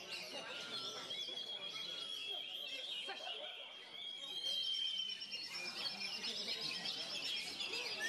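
Several caged songbirds singing over one another. A long steady whistle is followed by a fast high trill, with other chirps and phrases all around.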